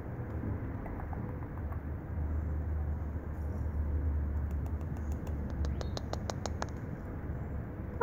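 Light clicks and taps close to the microphone, a few a second through the middle, over a low rumbling handling noise.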